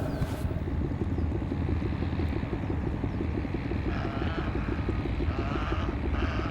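A steady, rapid low throbbing, like a motor or rotor running, with a few short high chirps over it in the second half.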